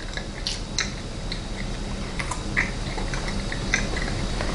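A person chewing a bite of carrot cake: soft, wet mouth clicks and smacks scattered irregularly, over a steady low hum.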